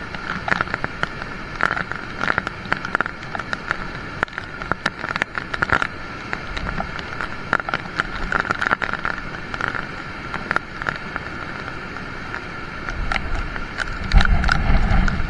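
Rain pattering close to the microphone as a dense run of irregular sharp ticks. A low rumble comes in near the end.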